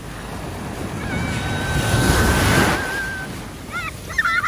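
Surf washing up a sandy beach, the rush of the wave building to its loudest about two seconds in. Near the end, young children shriek in short high cries as the water reaches them.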